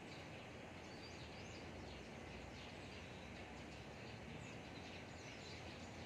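Faint, steady outdoor background noise with scattered, faint, high bird chirps throughout.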